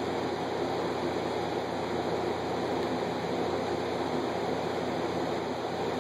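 Steady rushing of water from an aquarium filter circulating the tank water, even and unbroken.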